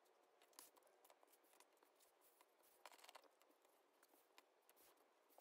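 Near silence, with faint scattered taps and slides of trading photo cards being moved across a tabletop, a small cluster of them about three seconds in.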